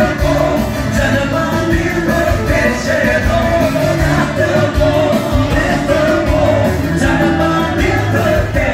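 Loud dance music with a singer over a steady beat.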